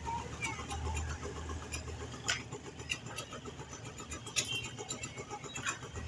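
A low engine hum that fades about halfway through, with scattered sharp clicks and knocks.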